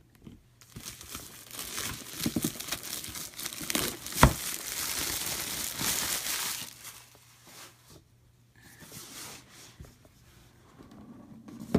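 Board-game packaging crinkling and tearing as the contents are pulled out of a freshly opened expansion box, with one sharp knock about four seconds in. Softer rustling follows near the end.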